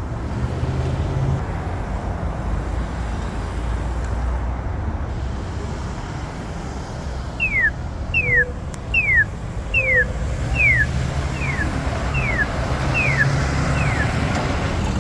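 Steady road traffic at an intersection. About seven seconds in, a run of nine evenly spaced electronic chirps, each falling in pitch, about one and a half per second, from an accessible pedestrian signal.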